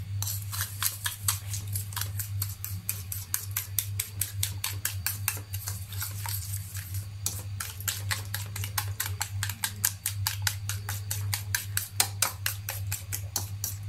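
A fork beating egg and sugar in a ceramic bowl, clicking against the bowl about five times a second with a brief pause about halfway through. A steady low hum runs underneath.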